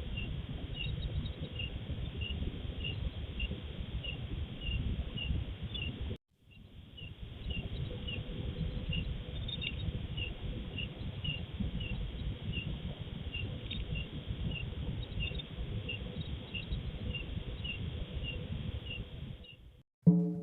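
A cricket chirping steadily, about two to three short chirps a second, over a low rumbling hiss, heard through a security camera's microphone. The sound cuts out for a moment about six seconds in.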